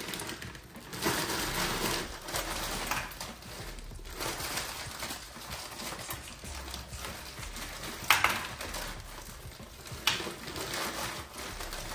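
Food frying in a hot pan, with a steady sizzle and scattered clatter from a utensil. There are two sharp clacks, one about eight seconds in and one about ten seconds in.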